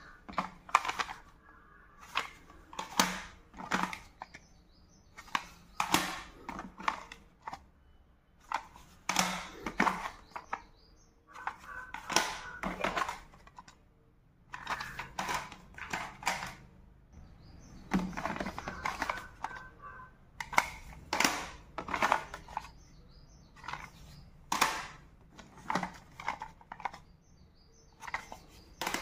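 Plastic audio cassette cases clacking and clicking against one another as they are picked up and sorted by hand, in an irregular run of sharp knocks, some in quick pairs and clusters.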